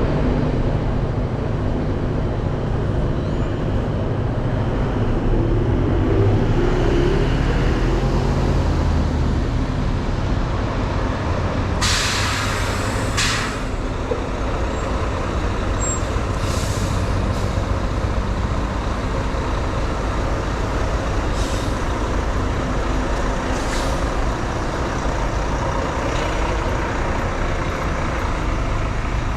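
Diesel bus engine running steadily, with short sharp hisses of air released from its air brakes or doors several times, about twelve seconds in and again later.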